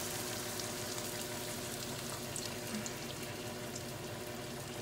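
Crumbled sausage, diced tomato and onion sizzling in a hot nonstick skillet as milk is poured in. The sizzle is steady and eases off slightly, with a few faint ticks.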